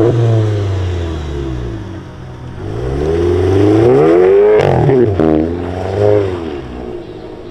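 Car engine revving hard while being drifted: the pitch falls off at first, then climbs to a loud peak about four and a half seconds in and drops suddenly, followed by two shorter revs.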